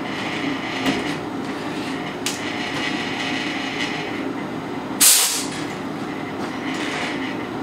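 Ridgid benchtop drill press running steadily while drilling steel armor scales. A short, loud hiss, like a compressed-air blow gun clearing chips, comes about five seconds in.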